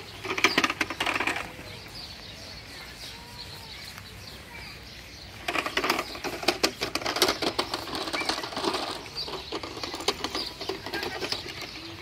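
Small plastic toy vacuum cleaner being dragged by its hose over grass and stepping stones, its wheels and body rattling and clattering in rapid irregular clicks. The rattling comes in two stretches, a short one at the start and a longer one from about halfway on, with a lull between. Faint bird chirps in the lull.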